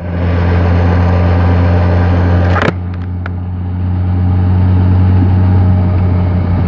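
Motorcycle engine and wind noise as the bike pulls away and rides along, with a steady low hum that comes up sharply at the start. A single sharp click about two and a half seconds in.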